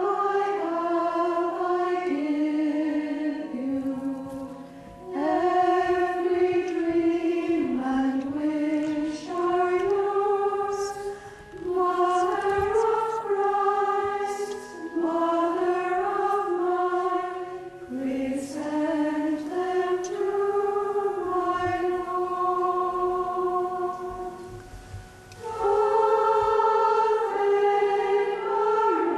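A choir of women's voices, the community of Cistercian nuns, singing a slow sacred melody together in phrases of a few seconds, with short pauses for breath between them.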